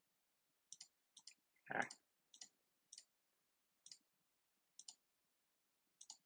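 Faint computer mouse button clicks, about seven spread irregularly over six seconds as a dropdown menu is opened and an option picked. A short, duller and louder sound comes a little under two seconds in.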